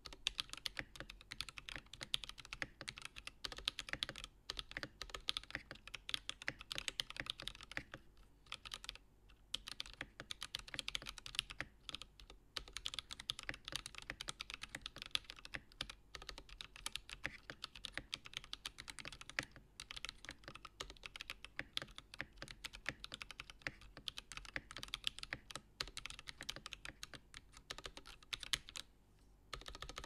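Typing on a CannonKeys Satisfaction75 mechanical keyboard with Holy Panda tactile switches, a brass plate and PBT keycaps. Keystrokes come in a fast, steady stream, with a few short pauses.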